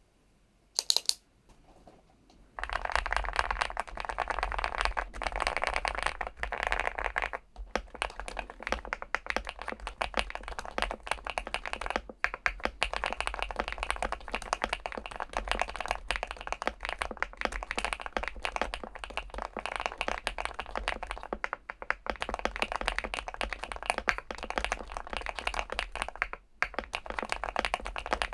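Weikav Stars75s aluminium-cased 75% mechanical keyboard with PBT keycaps, typed on rapidly and continuously. Dense clacking keystrokes start a couple of seconds in, after a single sharp click, with a few short pauses.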